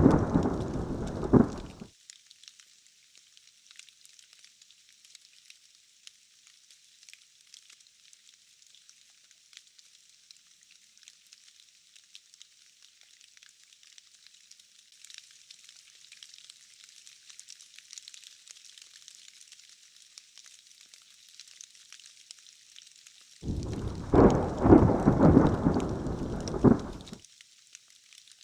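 Steady rain hiss throughout a thunderstorm. A loud thunder rumble at the start cuts off abruptly about two seconds in, and a second rumble starts about twenty-four seconds in and lasts nearly four seconds before stopping sharply.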